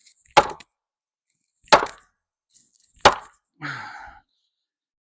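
Three sharp strikes of a tool on the old corral's wood, evenly spaced about a second and a third apart. A brief rougher sound with a low, falling pitch follows just after the third strike.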